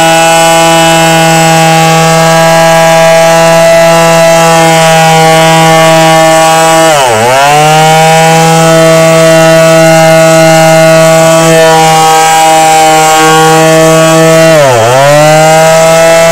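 Yojimbo 300-watt finishing palm sander running at steady speed while sanding a wooden board, a loud, even motor hum. About seven seconds in and again near the end, its pitch dips briefly and picks straight back up.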